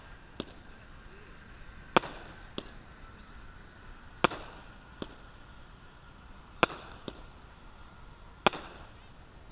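A 200-gram consumer firework cake (Six Gun) firing shot after shot: a loud sharp bang about every two seconds, four in all, each followed about half a second later by a smaller pop.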